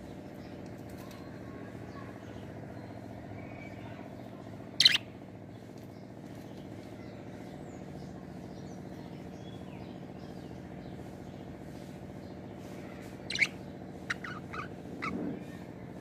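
Budgerigars calling: one loud, sharp chirp about five seconds in, then a quick run of short chirps near the end, over a steady low hum.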